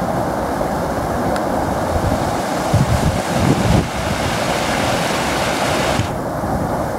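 Muddy floodwater in a swollen wadi rushing and churning over stones in a steady, loud rush. Low gusts of wind buffet the microphone about three seconds in.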